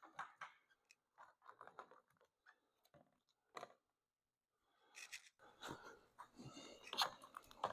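Faint, scattered small clicks and rustles of hands handling a wire and plastic parts. They grow busier and a little louder about five seconds in.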